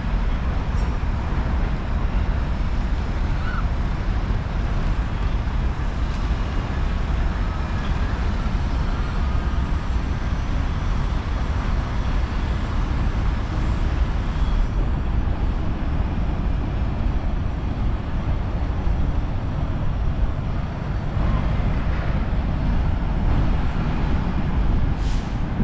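Steady low rumble of city traffic, an even noise with no single engine standing out.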